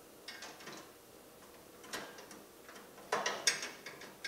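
Socket ratchet wrench clicking in short runs as a bracket bolt is turned and tightened, with light metal clinks; the loudest run of clicks comes about three seconds in.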